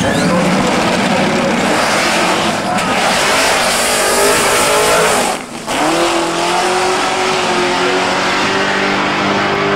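Supercharged V8 engine of a drag-racing Audi 80 at full power as the car launches and runs down the strip. The sound drops out briefly about five and a half seconds in, then carries on as a steadier, more even tone.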